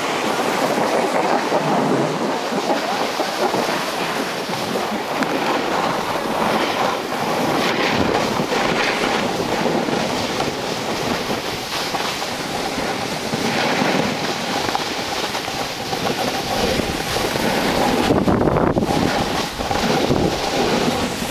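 Snowboard sliding over packed snow: a continuous rough scraping rush, with wind buffeting the microphone.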